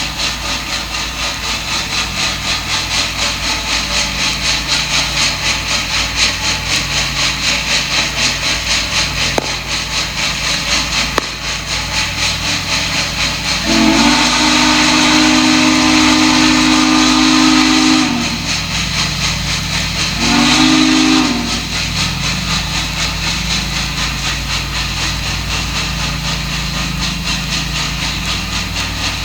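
DM&IR Yellowstone No. 225, a 2-8-8-4 articulated steam locomotive, working with a steady, rapid chuffing exhaust. About 14 s in its steam whistle sounds one long blast of about four seconds, then a short blast two seconds later.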